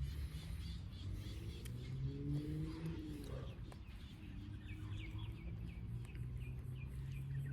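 Birds chirping in quick short notes over a steady low hum, with a fainter tone sliding up and back down in the middle.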